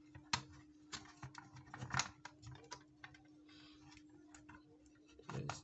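Plastic case of a portable AM/FM radio being handled and pressed shut: scattered light clicks and knocks, the loudest about two seconds in, over a faint steady hum.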